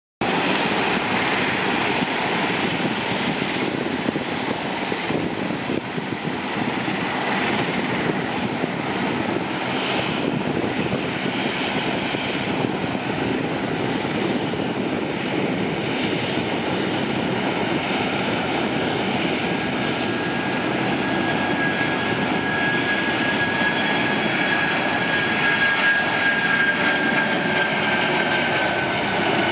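Boeing 757-24A(PF) freighter's twin turbofan engines at takeoff power during the takeoff roll: a steady jet roar. A high whine comes in about two-thirds of the way through and drops a little in pitch near the end as the aircraft draws near.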